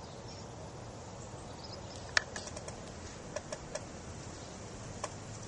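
Quiet outdoor background hiss with one sharp click about two seconds in, followed by a few lighter clicks and ticks.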